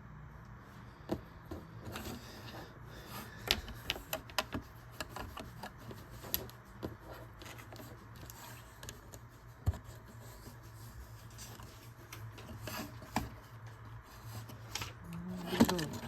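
Lego pieces being handled and pressed together: scattered sharp plastic clicks and light rubbing, with a quicker cluster of clicks near the end.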